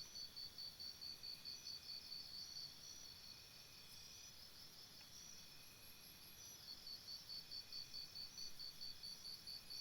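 Faint insect chirping, a high-pitched even pulse of about five chirps a second. It breaks off for a few seconds midway and then starts again.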